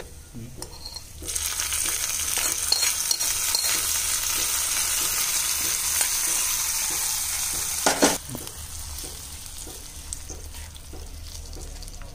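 Hot tempering oil with fried shallots, curry leaves and dried red chillies poured onto a curd-based curry, sizzling loudly from about a second in. A sharp knock comes about eight seconds in, after which a fainter sizzle remains.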